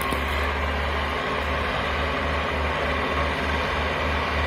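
MTZ-80 tractor's four-cylinder diesel engine running steadily, with a deep low rumble.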